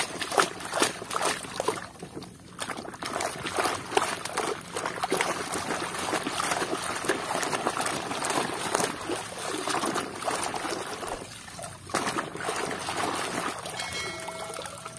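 Muddy water splashing and sloshing as a hand scrubs a mud-caked plastic toy truck in it, in quick irregular splashes.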